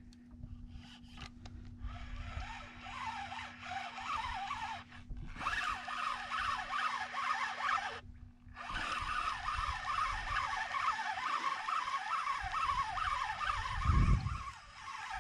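Spinning reel being wound in under load with the rod bent, its gears and line whirring in a fast, uneven chatter that breaks off briefly twice. A low thump near the end.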